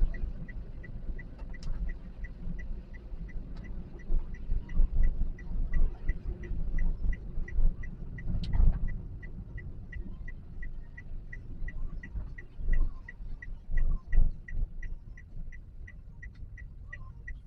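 Car turn-signal indicator ticking steadily inside the cabin of a Toyota Calya, about two to three ticks a second, over a low engine and road rumble with a few dull thumps.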